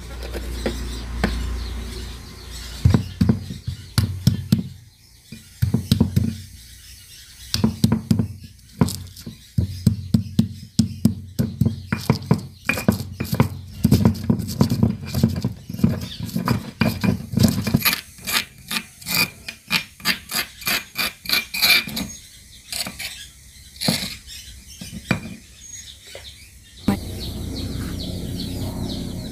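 Stone pestle pounding and grinding spices and chillies into a paste in a stone mortar (cobek): repeated knocks of stone on stone, in quick regular runs in the second half. Near the end they stop and give way to a steady low sound.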